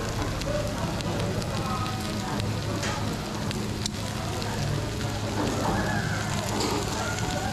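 Shellfish and meat sizzling and crackling on a tabletop grill, with indistinct chatter and a steady low hum underneath.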